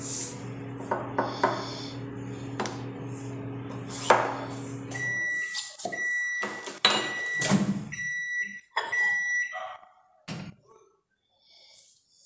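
Microwave oven running with a steady hum that stops about five seconds in, followed by a series of about five high beeps signalling the end of the heating cycle. Several knocks and clatters come in between and after, as the door is opened and a bowl is handled.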